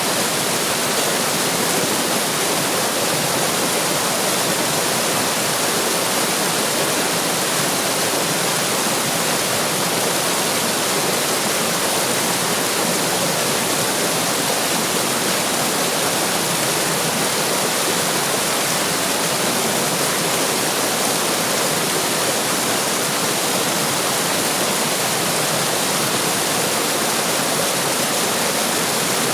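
Running water rushing and splashing at a steady level, like a small waterfall or fast stream, with no changes.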